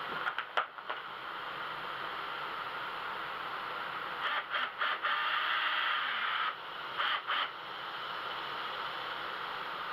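A few short scraping and rustling sounds: brief bursts about half a second in, a cluster around four to six seconds, and another pair about seven seconds in, over a steady hiss.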